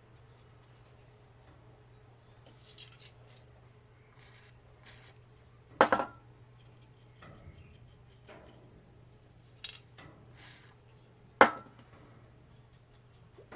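Sharp metallic clinks and taps of small metal tools or parts being handled, with three loud clicks (one about halfway through, two near the end) and quieter handling noises between, over a faint steady low hum.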